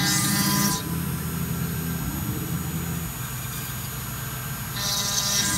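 CNC machine cutting Silestone quartz: the spindle runs with a steady multi-tone whine, and a hissing grinding noise of the tool in the stone sounds at the start, drops away after about a second, and comes back near the end.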